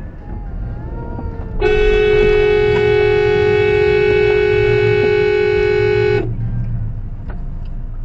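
A Subaru's car horn held in one long steady blast of about four and a half seconds, a single note, sounded as a warning at a pickup truck cutting in; low road and engine rumble runs underneath.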